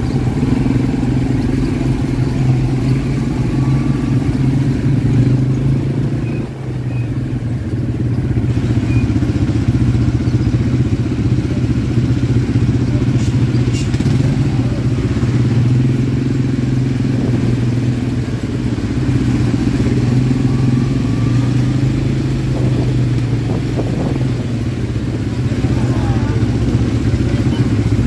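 ATV engine running steadily while under way, its level dipping briefly about six seconds in before picking up again.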